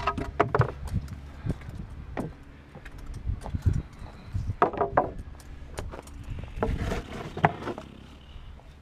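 Framing lumber boards knocking and clattering against each other as they are picked up and shifted in a pile: a string of irregular sharp wooden knocks, a few with a short ring, over a steady low hum.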